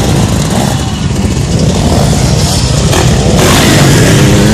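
Dirt bike engines running and revving, one getting louder and harsher about three seconds in as a bike passes close by.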